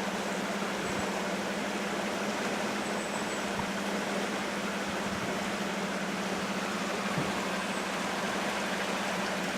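Linville River rushing in a steady, even roar of water, with a constant low hum underneath.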